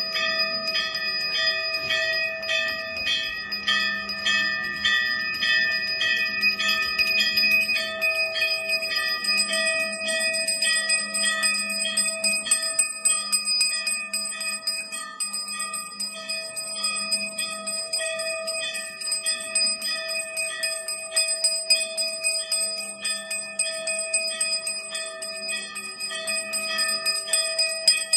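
Temple bells rung rapidly and without pause for the aarti: several bright ringing tones sound together, struck again and again at a quick, even pace, with a low tone that comes and goes beneath them.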